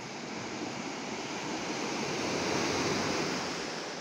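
Ocean surf rushing on the beach, a steady wash of noise that swells to a peak a little past halfway and then eases off.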